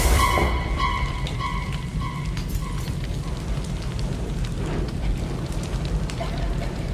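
Dark ambient sound effects from a symphonic black metal album intro: a low steady rumble, with an echoing tone that repeats about three times a second and fades away over the first two seconds.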